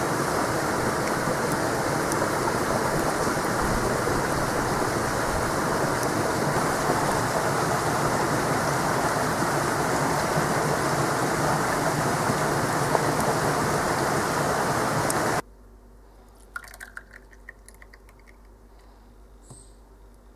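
A steady, even hiss from a cast iron pot steaming over a wood fire. About fifteen seconds in it cuts off abruptly to quiet room tone with a few faint clicks.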